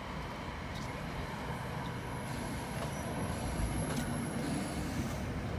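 NJ Transit commuter train, cab car leading, rolling along the platform with the rumble of its coaches growing slightly louder. A thin, steady high whine sounds over it from about a second in until near the end.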